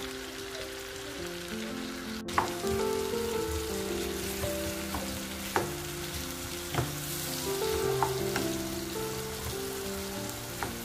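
Diced green peppers and onion sizzling in hot oil in a frying pan while a wooden spoon stirs them, knocking sharply against the pan several times. A melody of background music plays throughout.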